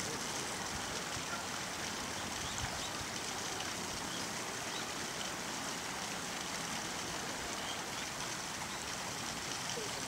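Running water of a small stream, a steady even rush.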